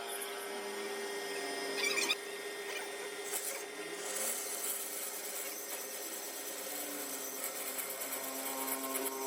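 Lathe running with a steady hum while metal is scraped against, with a brief louder scrape about two seconds in.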